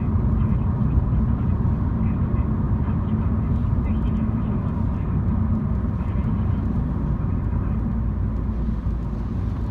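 MINI car driving, heard from inside the cabin: a steady low rumble of engine and road noise.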